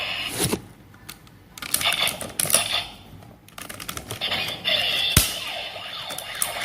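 CSM Kamen Rider Kabuto transformation belt toy playing its electronic sound effects and music, broken by about three sharp clicks as the toy is worked, the loudest a little past the middle.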